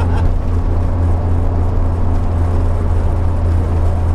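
Turbocharged car's engine and road noise at a steady low drone while cruising, without revving up or down.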